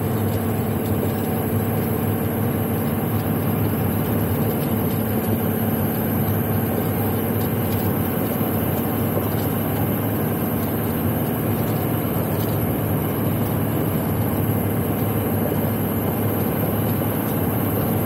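A 1990 Jeep driving at a steady speed: its engine runs at an even, unchanging pitch under a constant rush of road noise.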